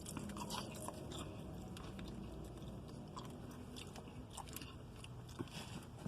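A person chewing a mouthful of crispy fried mushrooms close to the microphone: soft, irregular crunches and wet mouth clicks.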